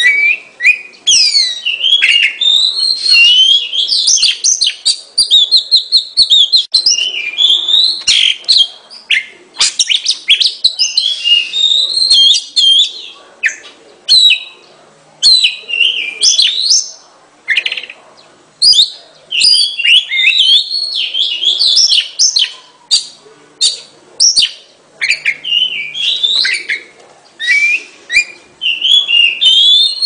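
Oriental magpie robin singing: a long run of varied, clear whistled phrases that slide up and down, in bursts with short breaks and a sparser stretch in the middle.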